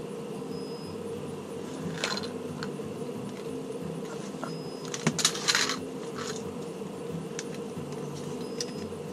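Clear vinyl hose being handled and coiled by hand, rubbing and lightly clattering, loudest in a short flurry about halfway through, over a steady low hum.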